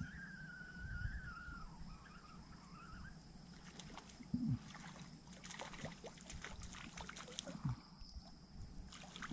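Wading in a shallow creek: water sloshing and small splashes around the legs, with scattered knocks and a few soft low thuds. A faint wavering high tone runs through the first three seconds, and a faint steady high hum lies underneath.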